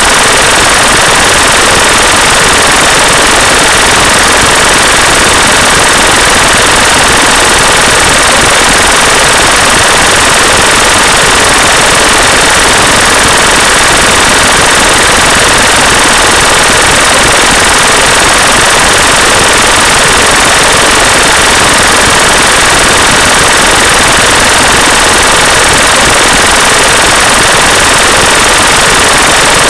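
A loud, steady, harsh hiss with a fast rough crackle through it, unchanging throughout: the masking noise of a subliminal track, under which the affirmations are hidden.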